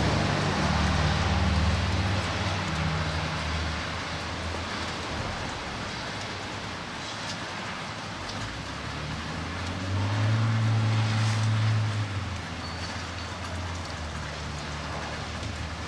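Steady patter of freezing rain, with the low rumble of passing vehicles that swells at the start and again about ten seconds in.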